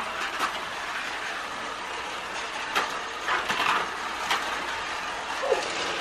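Battery-powered Magic Tracks light-up toy cars running along plastic track: a steady small-motor whir with scattered clicks and clacks of plastic, the sharpest a few seconds in.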